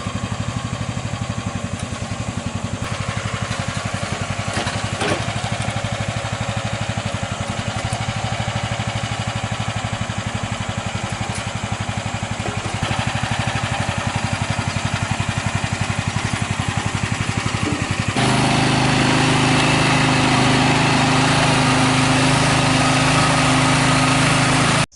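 Small mini excavator engine running steadily with an even, fast firing rhythm. About 18 seconds in it gets louder, with a stronger, higher-pitched hum.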